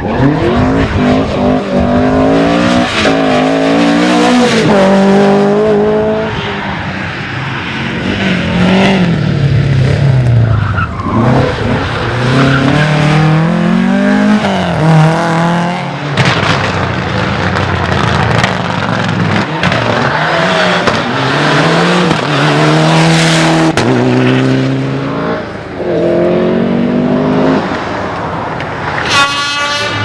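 Rally cars driven hard on a tarmac stage, one after another. Each engine revs up through the gears, its pitch climbing in steps with quick drops at each shift, then falls away as the car passes.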